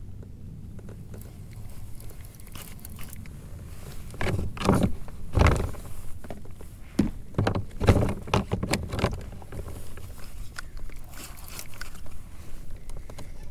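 Irregular knocks and scrapes against a fishing kayak while a hooked catfish is being fought, clustered in the middle and loudest around five and eight seconds in, over a low steady rumble.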